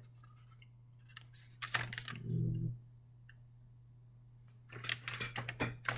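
Sheet of loose-leaf paper rustling and crinkling as it is handled, in two short crackly spells about two seconds and five seconds in, over a steady low hum.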